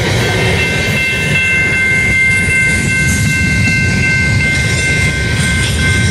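A freight train of covered hopper cars rolling past at speed: a steady heavy rumble of wheels on rail with clickety-clack, and thin high ringing tones held over it.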